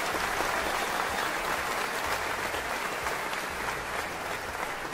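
Applause, a steady sound of many hands clapping that slowly fades toward the end.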